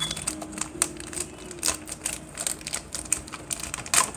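Clear plastic wrapping crinkling and crackling in quick, irregular clicks as hands pull it open, with a sharper crackle near the end.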